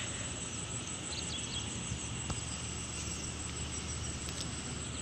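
Steady high-pitched drone of insects over a low, even rumble of outdoor background noise, with a few faint short chirps.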